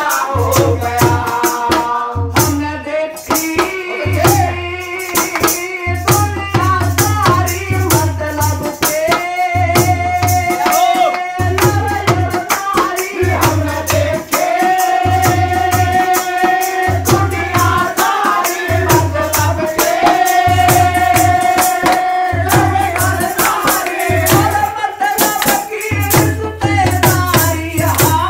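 A devotional bhajan performed live: a man sings into a microphone over a dholak-type barrel drum and hand percussion keeping a steady rhythm, with some long held notes.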